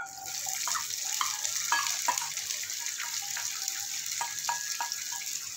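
Chopped onions and green chillies sizzling in hot oil with whole spices in a non-stick kadai; the steady hiss starts abruptly as they go in. Scattered taps and scrapes of a wooden spatula against the steel bowl and pan, some with a brief ring.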